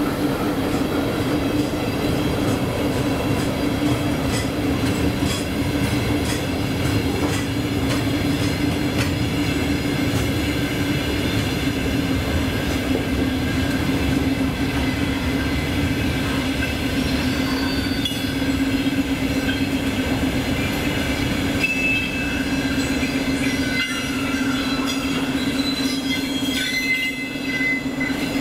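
Freight train of open gondola wagons rolling past: wheels clicking over rail joints over a steady low rumble and hum. High-pitched wheel squeals come in during the second half.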